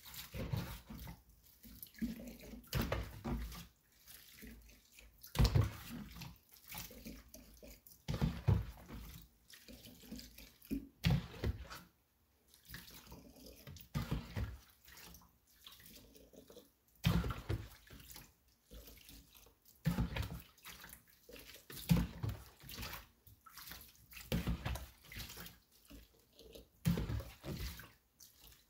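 Water splashing and sloshing in irregular bursts every second or two.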